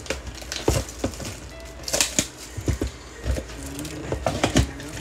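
Scissors cutting the plastic shrink wrap on a cardboard trading-card box, then the wrap and box being handled: a string of sharp crinkles, clicks and taps at uneven intervals.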